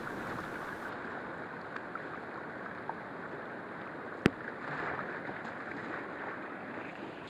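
Rushing whitewater of a river rapid, heard steadily from inside a canoe running it. A single sharp knock comes about four seconds in.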